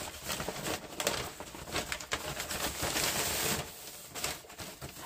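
Plastic bags of frozen food crinkling and rustling as they are handled, with small knocks of frozen packages.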